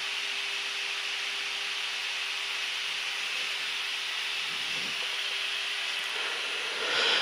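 Steady rushing hiss of cockpit noise in a Gulfstream G-IV jet in flight, with a steady low hum that drops out about six seconds in.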